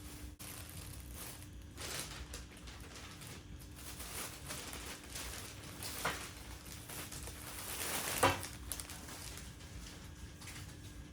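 Rustling and handling noises over a steady low hum, with two short knocks about six and eight seconds in, the second one the loudest.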